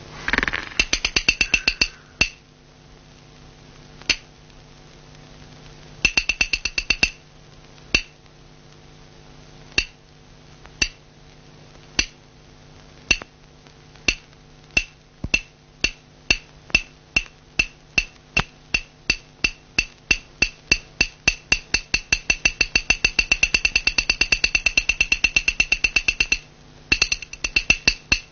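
Wood-block-like percussion in a cartoon score: sharp, bright strikes, a quick flurry at the start, then single strokes about a second apart that steadily speed up into a rapid roll. The roll breaks off and resumes briefly near the end.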